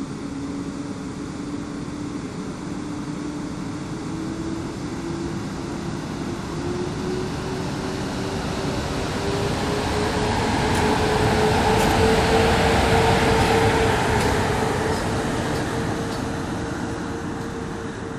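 PKP EP09 electric locomotive pulling away with an Intercity train, its traction motors giving a whine that rises steadily in pitch as it accelerates, then holds. The sound grows loudest about two-thirds of the way through as the locomotive passes close, with a few sharp ticks from the wheels, and the coaches roll by at the end.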